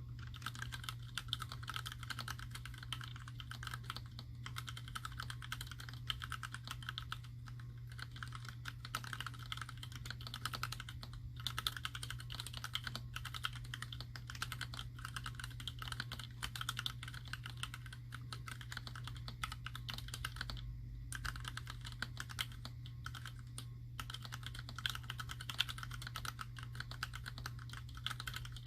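Steady, fast typing on a mechanical keyboard: an Alice-layout clone with an acrylic case and plate, Gateron Ink linear switches and PBT keycaps, making a dense clatter of keystrokes. The typing breaks off briefly about a third and again about two thirds of the way through.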